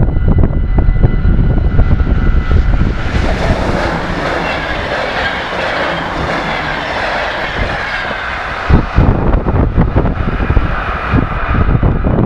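Level-crossing bell ringing rapidly over wind rumble on the microphone. From about three seconds in, an NS Koploper electric intercity train passes at speed with a rush of wheels and air that swells and fades. The sound changes sharply about nine seconds in, back to wind rumble.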